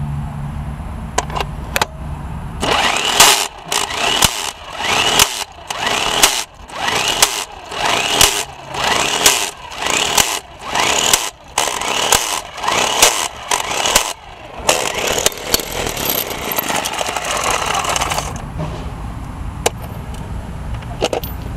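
Impact wrench hammering on a steel wheel's lug nut to loosen it. The hammering comes in pulses, about one and a half a second, for some twelve seconds, then runs steadily for a few seconds and stops.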